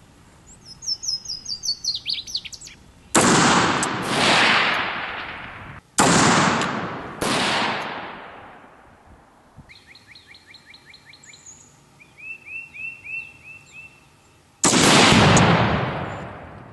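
Four loud rifle shots from a Faxon ARAK-21 gas-piston rifle in .223, each with a long rolling echo. The shots come about 3 s in, two close together around 6 and 7 s, and the last near the end. Between the shots, birds chirp in quick series of short notes.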